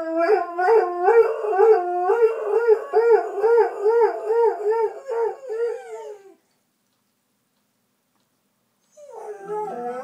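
Dalmatian howling: one long, wavering howl whose pitch rises and falls a couple of times a second, stopping about six seconds in.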